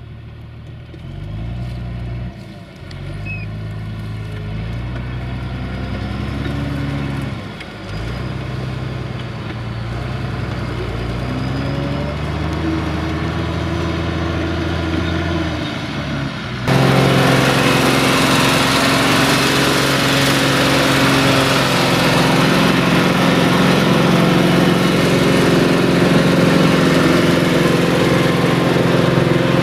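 Fiat 1380 DT tractor's diesel engine working a reversible plough in wet ground. For the first half the revs rise and fall, dipping sharply twice, as the tractor turns with the plough lifted. About halfway through it switches abruptly to a closer, louder, steady engine note under load, with a broad rushing noise over it as the plough turns the mud.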